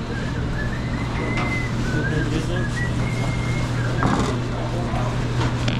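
Commercial kitchen background: a steady low hum of running equipment, with a few short clicks and knocks and a faint, thin high tune, like someone whistling.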